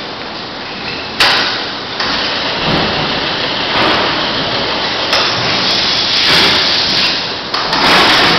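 Heavy-duty power hide puller working: its motor, gearbox and chain-driven roller drag a beef hide off the carcass. The sound is a loud, rough rush with rattling and tearing, starting suddenly about a second in and surging louder and softer after that.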